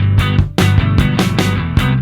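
Rock music with distorted electric guitar, bass and drums, keeping a steady beat.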